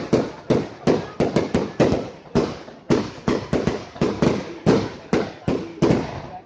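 Fireworks going off in a rapid, irregular string of sharp bangs, several a second, each with a short fading tail; the bangs stop near the end.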